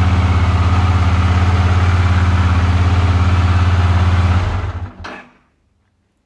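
Honda CX500's V-twin engine running steadily, then dying away about four and a half seconds in.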